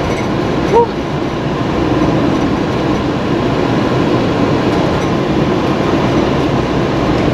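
Steady engine and road noise inside a motorhome's cab while driving, with a brief rising tone just under a second in.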